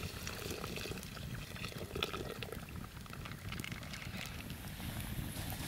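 Tea bubbling at the boil in a pan over a wood fire, with scattered small crackles over a low steady rumble.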